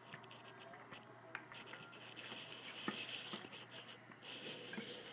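Faint scattered taps and rustles of a ferret scrabbling on a rag rug and knocking an empty bottle about as it plays.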